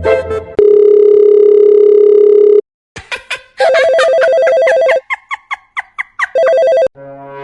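Telephone ringing: a loud warbling ring about two seconds long, a brief gap, then shorter rings broken up by quick chirping blips.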